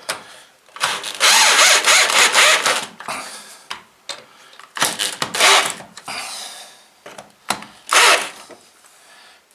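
Cordless drill-driver running in three bursts as it drives screws into a wall: a long run of about two seconds near the start, then two shorter runs.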